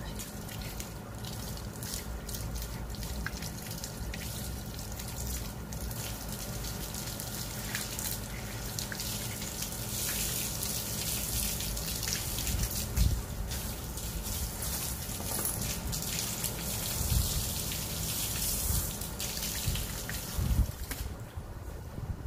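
Garden hose spraying water over a German Shepherd and splashing onto a tiled deck, a steady hiss that grows stronger in the middle, with a few dull thumps in the second half.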